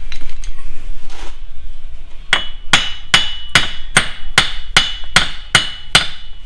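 Hammer striking metal in a steady series of about ten ringing blows, roughly two and a half a second, starting a couple of seconds in: tapping the drive axle's splined end back through the wheel bearing hub so the hub assembly can come off.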